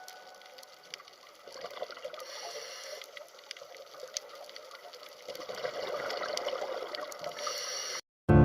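Water gurgling and trickling, with a few small clicks, growing louder about five seconds in and cutting off suddenly near the end.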